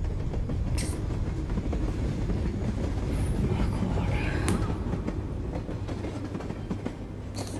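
Low steady rumbling drone from a film soundtrack, with a few short sharp clicks on top.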